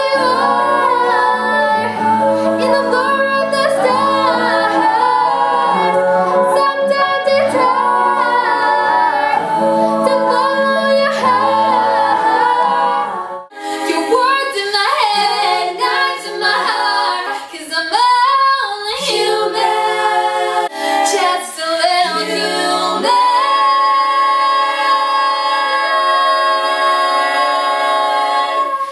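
Young women's vocal group singing a pop song in close harmony, with a soprano lead on C#5 notes. For the first half an acoustic guitar plays low notes beneath the voices. About 13 seconds in it cuts to an a cappella passage, which ends on a long held high note.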